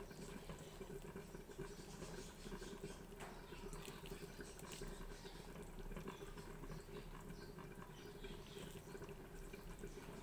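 Pot of noodle-soup broth simmering on the stove: faint, irregular small bubbling pops over a steady low hum.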